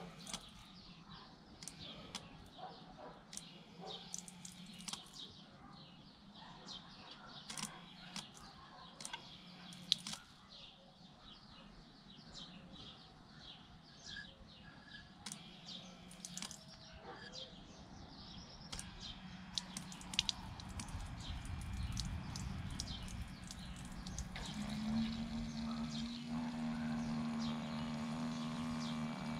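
Birds chirping over the low, steady hum of a small DC mini water pump. The hum is there at the start, fades out, and comes back louder near the end as the pump is switched on again by its infrared sensor and relay.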